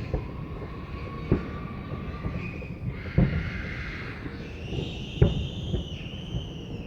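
Fireworks going off: sharp bangs every second or two, two close together late on, over the crackle of fireworks. A long high whistle starts about halfway through and slowly falls in pitch.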